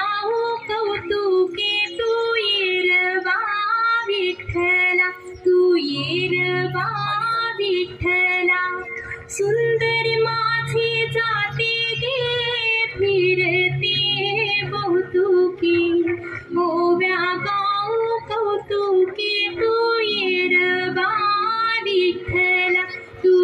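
A woman singing a folk-style song over a steady instrumental backing, with held drone notes under the melody.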